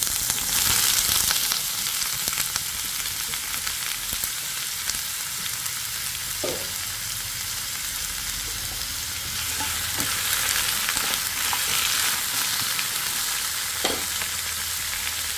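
Radish and potato pieces frying in mustard oil in a kadhai, with a steady sizzle and a few brief knocks as they are stirred.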